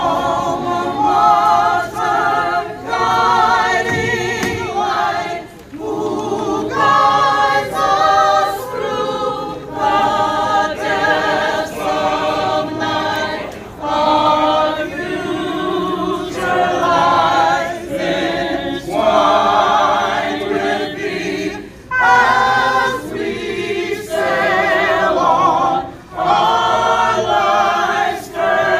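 A mixed group of men and women singing a song together, in sung phrases with brief pauses between them.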